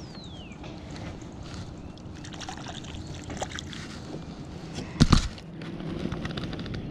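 Lake water lapping and trickling around a plastic kayak as a hand dips into it, with one loud bump about five seconds in.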